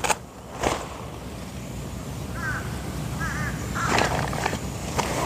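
Birds calling in the morning: two short phrases of a few quick arched notes in the middle, and louder, rougher calls about four seconds in and again at the end. At the very start, a couple of sharp rustles as a tent flap is pulled open.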